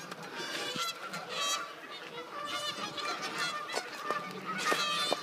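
Geese honking over and over in a rapid, overlapping run of short calls, several a second, the agitated honking of geese fighting each other.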